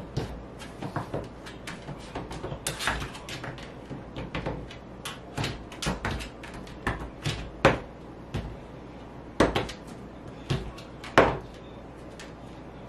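Empty collapsible dog bowls knocked, pushed and tipped against the laminate floor and each other by a hungry border collie: an irregular run of clacks and knocks, with a few sharper ones in the second half.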